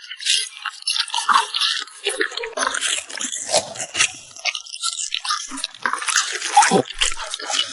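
A French bulldog chewing and biting into watermelon: irregular wet, smacking bites and crunches one after another.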